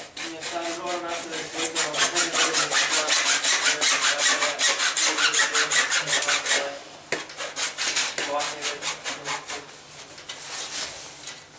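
Hacksaw cutting through grey PVC pipe with quick, even back-and-forth strokes. The sawing breaks off briefly about seven seconds in, then carries on more lightly and fades near the end.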